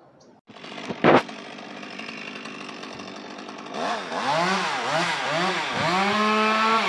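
Two-stroke chainsaw revving up and down about four times in quick succession, then held at high revs near the end. A single sharp knock comes about a second in.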